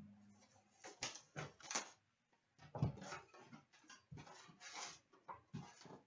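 Hands opening a shrink-wrapped Upper Deck hockey card box and pulling out its foil packs: plastic wrap, cardboard and packs rustling and crackling in irregular bursts.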